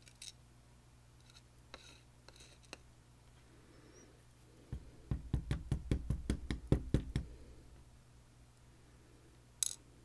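Light clicks of small lock parts being handled while a Clavis F22 lock cylinder is taken apart pin by pin. About five seconds in comes a quick run of about a dozen knocks over two and a half seconds, and one sharp click comes near the end.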